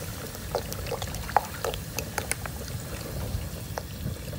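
Coca-Cola poured from a plastic bottle into a hot wok of goat meat, fizzing and bubbling with scattered small pops over a low steady rumble.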